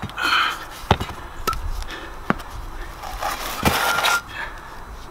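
Heavy cast-iron parts of a vintage engineer's vice being handled: a few sharp metal knocks and clanks, with scraping as the heavy parts are dragged and shifted on a slab, the longest scrape coming near the end.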